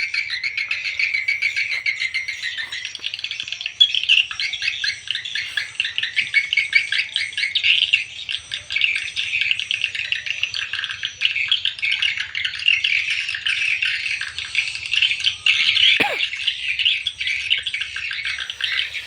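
Dense, continuous twittering of swiftlets, many overlapping chirping calls at once. A brief falling tone sounds once about sixteen seconds in.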